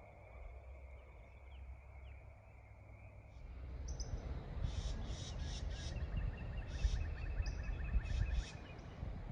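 Outdoor ambience: birds chirping, with a rapid trill in the middle, over a low rumble that gets louder about three seconds in.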